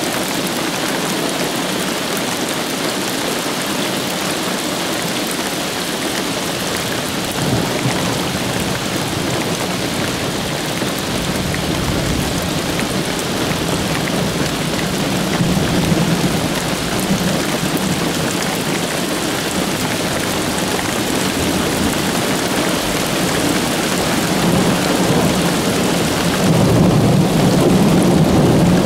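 Steady rain falling, with low rolling thunder that swells about halfway through and again, louder, near the end.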